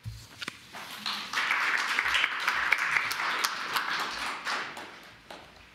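Audience applauding: a round of clapping that starts about a second in, builds quickly, then fades away over the last couple of seconds.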